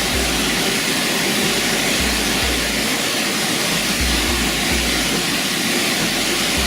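Steady rushing roar of a waterfall, with a deep rumble that comes and goes underneath.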